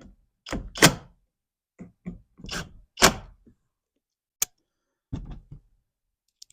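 Handling of car door parts and tools: a series of thunks and clattering knocks, the loudest about one and three seconds in, with a sharp click after about four and a half seconds.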